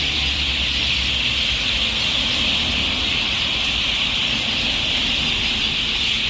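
Many birds chirping at once in a dense, constant high-pitched din, with no single call standing out.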